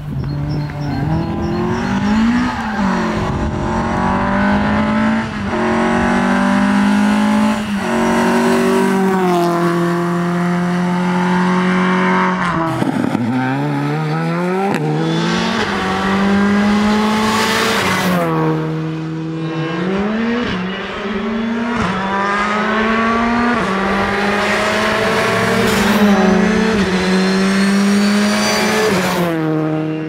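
Rally car engine at full throttle on a special stage, its pitch climbing and dropping back again and again as it shifts up and down through the gears while approaching and passing. A few sharp cracks come when it lifts off the throttle.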